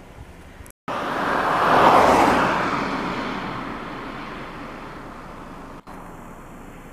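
A car passing by: a rush of tyre and engine noise that comes in sharply about a second in, is loudest around two seconds in, then slowly fades away.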